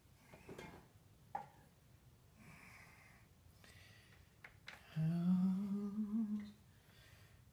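A man hums briefly, one rising tuneful phrase of about a second and a half, starting about five seconds in. Before it there are only a few faint clicks, the sharpest just over a second in.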